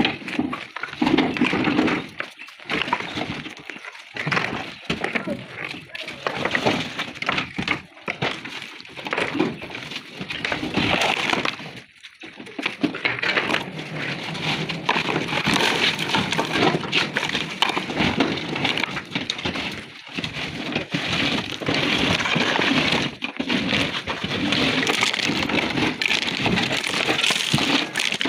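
Tarkwa flat stone slabs clattering and clinking against one another as they are picked off a stacked load in a truck bed and dropped onto the pile, a dense run of sharp stone-on-stone knocks.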